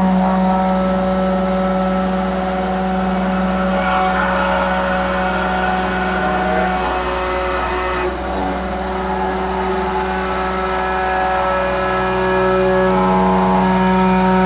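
Samsung excavator's Cummins diesel engine running steadily with the hydraulics working the boom and bucket. Its droning note shifts a couple of times, about seven seconds in and again near the end, as the hydraulics take load.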